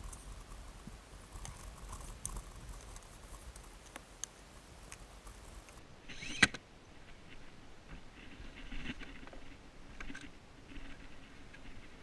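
A child car seat being handled and lifted into a car's back seat: rustling and scraping of fabric and plastic with small clicks, and one sharp knock about six seconds in, the loudest sound.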